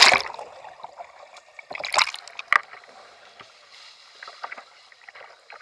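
Water splashing as a kayak capsizes and is rolled back upright with a Greenland paddle: a loud splash as the boat goes over, a second burst of splashing about two seconds in as the paddle sweeps and the hull comes up, then smaller splashes and drips.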